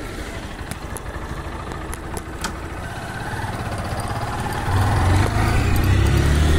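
Honda motorcycle engine pulling away and picking up speed, its pitch rising through the gears. It gets louder as it goes, with a heavy low rumble building about five seconds in.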